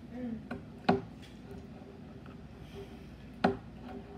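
Plastic spoon stirring slime in a plastic bowl, knocking against the bowl's side: two sharp knocks, about a second in and near the end, with lighter taps between.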